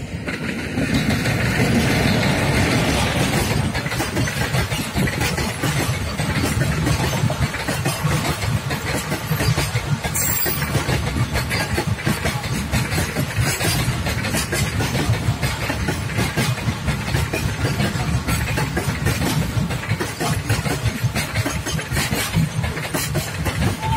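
A fast goods train hauled by a WAG-7 electric locomotive passes close by: the locomotive rushes past in the first few seconds, then a long rake of covered goods wagons rolls by with a steady rumble and rapid clicking of wheels over the rails.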